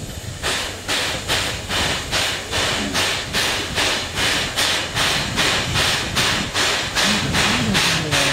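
JNR Class C11 steam tank locomotive C11 325 starting away with a train, its exhaust chuffing in an even beat of about three a second, with steam hissing from the cylinders.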